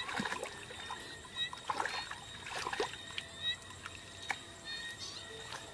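Hands sloshing and splashing in shallow muddy water while groping in the mud, in irregular short splashes.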